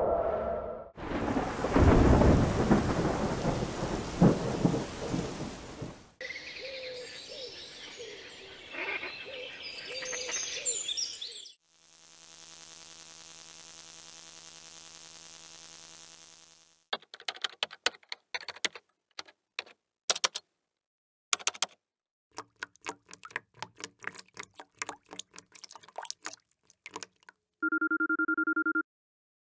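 A run of stock sound effects, one after another: a thunderstorm with loud rumbling thunder and cracks, then high bird chirping, then a steady electrical buzz, then fast keyboard typing clicks, and near the end a short pulsing two-tone electronic ring like a phone.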